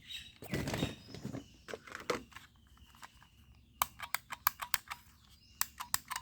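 A plastic toy rifle being handled, with a dull rustle early on and then two clusters of sharp plastic clicks in the last third.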